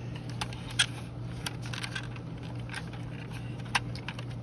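Scattered clicks and small knocks of hard plastic as the 1985 M.A.S.K. Jackhammer toy vehicle is handled and its parts worked, the sharpest about a second in and near the end, over a steady low hum.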